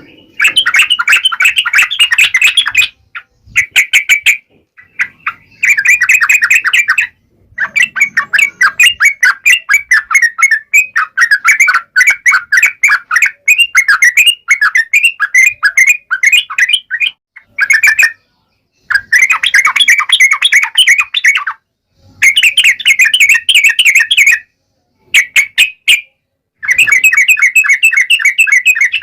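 Yellow-vented bulbul (trucukan) singing loudly in the wild-sounding 'ngalas' style: rapid runs of sharp, chattering notes, in phrases of a few seconds broken by short pauses.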